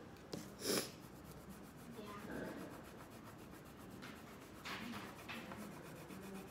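A crayon rubbing on paper in faint, scratchy back-and-forth strokes as an area is coloured in, with one short, louder scrape or knock a little under a second in.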